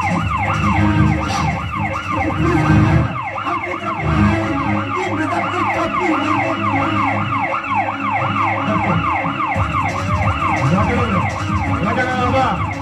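A warbling siren-like tone, its pitch sweeping up and down rapidly about three times a second without a break.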